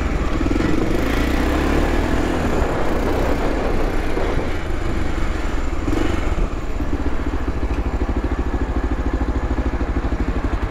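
Motorcycle engine running as the bike is ridden slowly along a street. About two thirds of the way in it eases off into a slow, even, idle-like beat as the bike comes to a stop.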